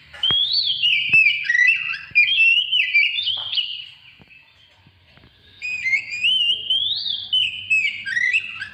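Oriental magpie-robin (kacer), a young bird, singing loud, fast, varied whistled phrases that swoop up and down in pitch. It sings two long phrases with a short pause between them, about four seconds in.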